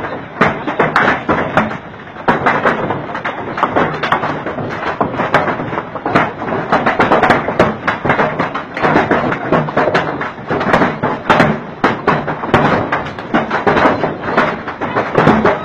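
Hail falling hard: a dense, continuous clatter of hailstones striking the ground and nearby hard surfaces.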